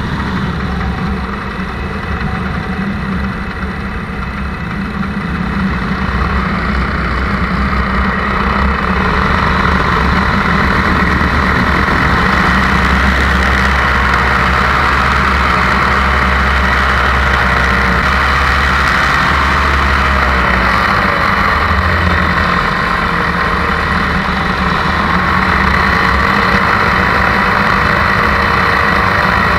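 Paramotor engine and propeller running steadily in flight. It gets louder several seconds in, and its pitch dips and climbs back again about two-thirds of the way through.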